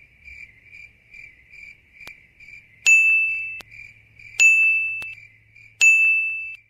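Cricket chirping steadily, a high pulse about two or three times a second. Three loud electronic beeps come over it about a second and a half apart from about three seconds in, each lasting under a second.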